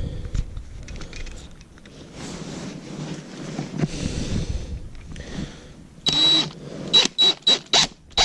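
Low handling and scraping noises, then a small power tool's motor run in a string of short bursts about a second in length or less, each with a high whine, near the end.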